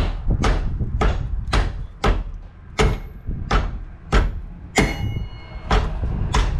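Hammer blows on metal, about a dozen in a row at roughly one every half second and slowing slightly, a few of them ringing: hammering to drive an old subframe bushing out of a car's subframe.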